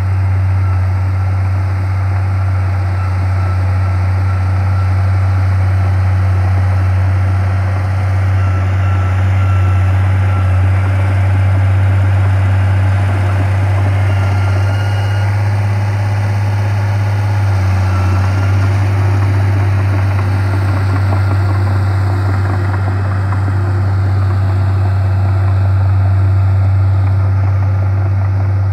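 Crawler bulldozer's diesel engine running steadily as it pushes soil, a continuous low drone whose pitch shifts slightly about halfway through.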